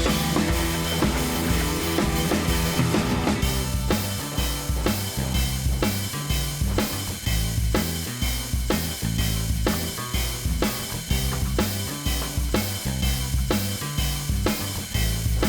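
Background music: a drum-led track with a steady beat of kick and snare over a bass line.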